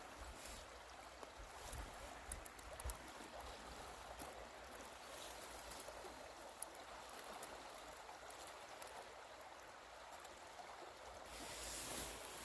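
Faint, steady rush of flowing stream water, with a few small clicks.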